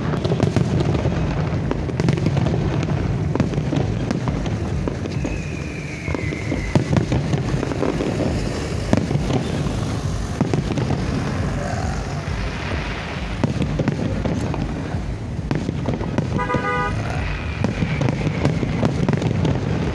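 Fireworks bursting and crackling continuously, with a deep rumble underneath. A vehicle horn toots briefly about three quarters of the way through.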